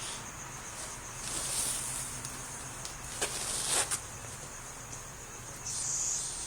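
A sleeping, dreaming dog breathing in three noisy, breathy snorts about two seconds apart, over a steady high-pitched chirring in the background.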